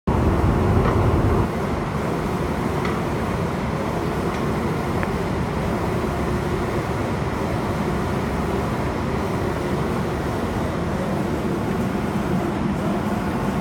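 Automatic spray-painting machine for cabinet doors running: a steady mechanical hum and rumble, heavier for the first second and a half, with a few faint clicks.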